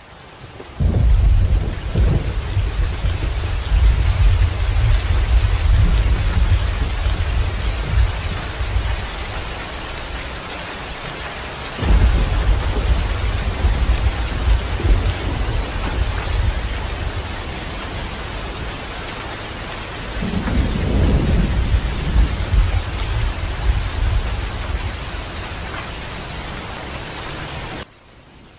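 Heavy rain pouring with rolls of thunder: deep rumbles swell about a second in, again about halfway and again about two-thirds through, over a steady hiss of rain. It cuts off suddenly near the end.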